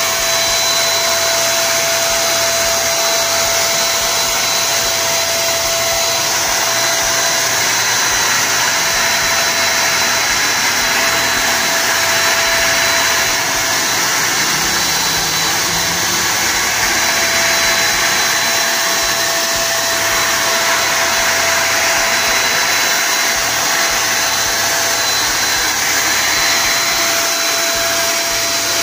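INGCO electric spray gun running: its motor's steady whine over a rush of air as it sprays lacquer.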